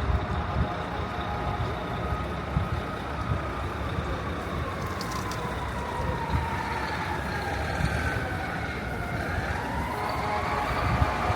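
Emergency-vehicle siren wailing, its pitch falling slowly for most of the span and then rising again near the end, over the steady rumble of street traffic.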